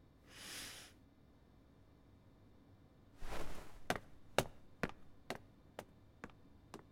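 A soft whoosh near the start, then a short rustle about three seconds in, followed by footsteps on a hard floor, about two a second, as someone walks away.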